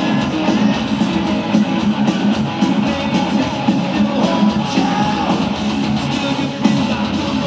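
A heavy metal band playing live through a festival PA: distorted electric guitars and drums, loud and unbroken, recorded from within the crowd.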